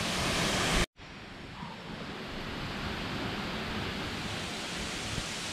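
Steady rushing of falling water. It breaks off abruptly just before a second in, then resumes a little quieter and slowly grows louder.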